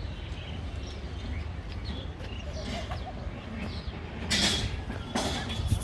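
Outdoor ambience: a steady low rumble with birds chirping, and two brief loud hisses after about four seconds.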